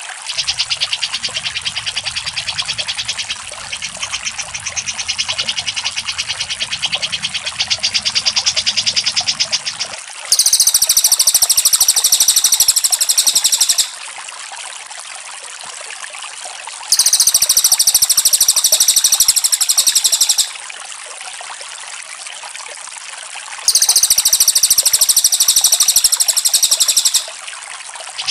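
Looped bird-song training recording of cucak jenggot and cililin. For about ten seconds there is a fainter, rapid high ticking trill over a low hum. Then three loud, identical high trills of about three and a half seconds each repeat at even spacing, with quieter stretches between them.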